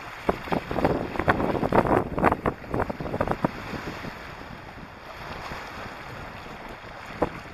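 Footsteps crunching on beach pebbles, a quick irregular run of clicks that dies away after about three seconds as the walker moves off. After that, steady wind on the microphone with surf behind it.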